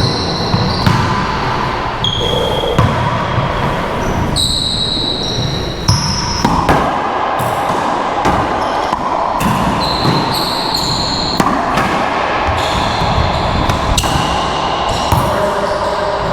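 Racquetball rally: the ball smacking off racquets and the court walls again and again, with the hits echoing, mixed with short high-pitched squeals that come and go throughout.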